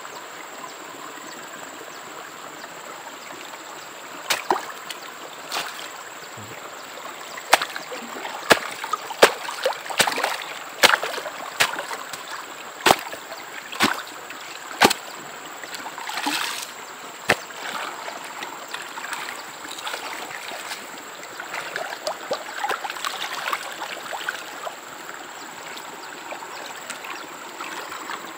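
Steady running stream water, with a run of sharp splashes and slaps from about four to seventeen seconds in as a red sluice carpet is dunked, shaken and rinsed over a gold pan to wash out the gold-bearing concentrate it caught. Softer sloshing follows.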